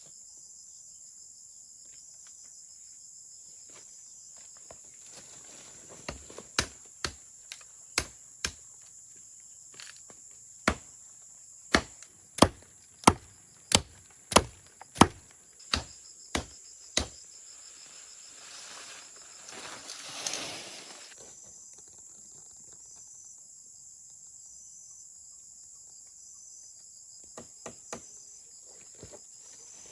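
Chopping: a run of about twenty sharp strikes, irregular at one to two a second, over a steady high drone of insects. About twenty seconds in comes a short rush of noise that swells and fades, and a few light knocks near the end.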